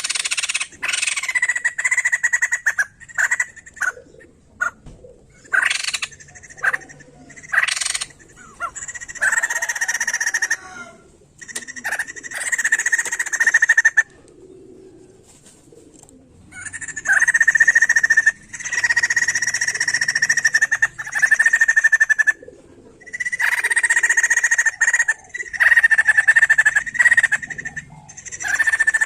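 White-crested laughingthrush calling in loud, harsh phrases a few seconds long, broken by short pauses and one longer pause about halfway through.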